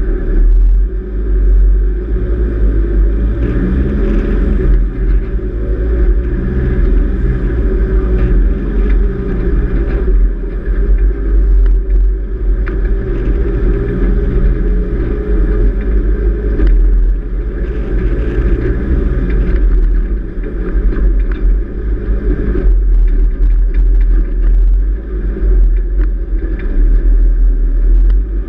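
Four-wheel drive running along soft beach sand, its engine pulling steadily under load. A heavy, continuous low rumble of wind buffets the outside-mounted microphone.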